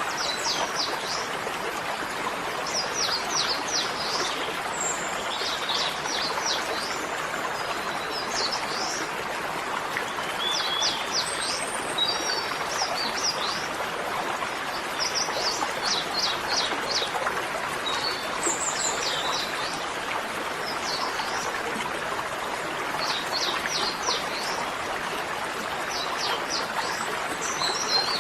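Small birds chirping in quick bursts of short rapid notes every second or two over a steady rushing noise like flowing water in a stream.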